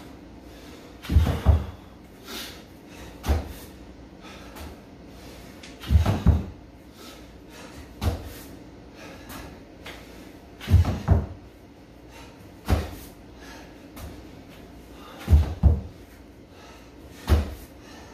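Repeated thuds of a person doing burpees on a gym floor mat. A heavy double thud is followed about two seconds later by a lighter single one, and the pattern repeats about every four to five seconds, four times over.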